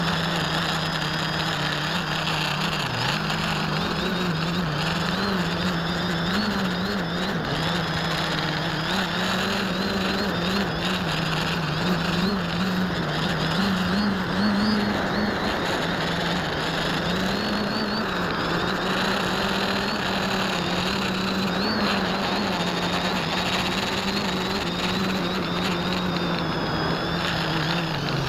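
Quadcopter motors and propellers running in flight, heard from a camera mounted on the craft: a steady buzzing drone whose pitch wavers up and down with the throttle, over a constant hiss.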